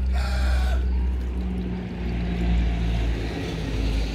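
A rooster crowing, its call ending less than a second in, over a steady low engine drone that runs on under it.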